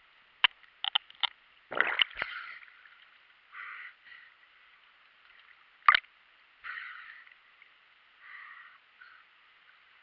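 Muffled water sounds heard through a GoPro's waterproof housing as a freediver surfaces: a few sharp knocks and a gurgling splash in the first two seconds, a loud click about six seconds in, and short rushing bursts of water noise every second or two.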